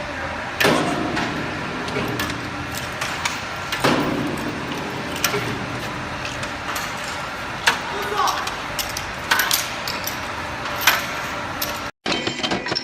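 Irregular knocks and clatter, several sharp strokes a few seconds apart, over a steady background noise.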